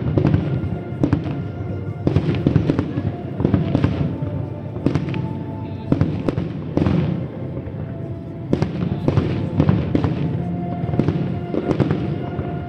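Aerial fireworks display: shells bursting with sharp reports and crackle at irregular intervals, roughly one or two a second, over music.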